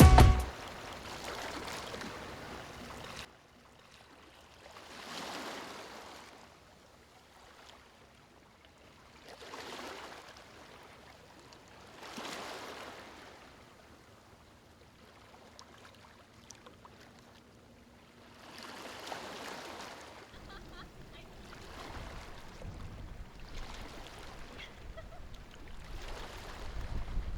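Soft swells of rushing water noise, like waves washing in, coming a few seconds apart with quiet gaps between them. From about two-thirds of the way through they turn into a steadier wash with a low rumble under it.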